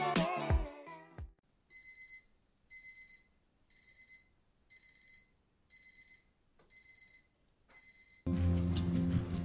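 An electronic wake-up alarm beeping in short bursts of rapid beeps, about one burst a second, seven times. Intro music fades out about a second in, and soft music with guitar starts near the end.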